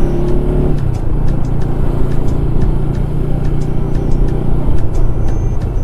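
Motorcycle engine running steadily as it is ridden through town traffic, its note changing about a second in, over low wind rumble on the microphone.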